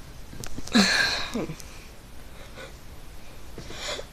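A kid forcing a burp by breathing out hard and fast: a loud rush of breath about a second in, with two short low sounds dropping in pitch. Another breath is drawn in near the end.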